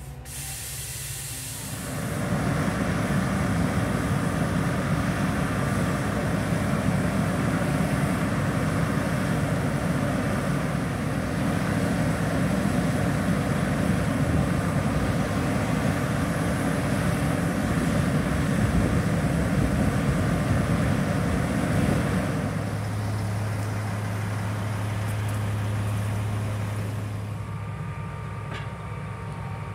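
Truck-mounted water-well drilling rig running: a loud, steady machinery rumble with hiss that sets in about two seconds in. About 22 seconds in it drops to a quieter, steady low hum.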